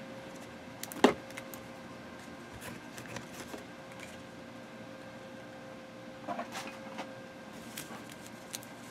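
Quiet room tone with a faint steady electrical hum, broken by a sharp click about a second in and a few light ticks and taps later on.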